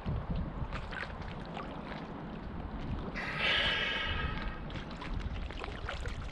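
Water sloshing and gurgling against a camera in the water, with scattered small clicks and splashes. About three seconds in, a louder whistle-like hiss rises suddenly, lasts about a second and a half, then fades.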